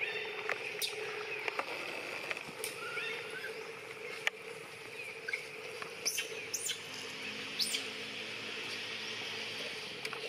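Dry leaf litter rustling and crackling in short sharp clicks as macaques move and play on the forest floor, over a steady background hum, with a few faint short chirps about three seconds in.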